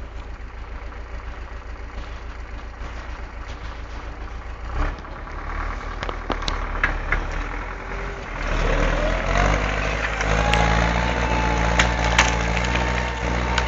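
MTZ-82 tractor's four-cylinder diesel engine running at low revs, then revving up and pulling harder about eight seconds in, with a whine that rises in pitch and then holds steady. A few sharp metallic clanks sound over it.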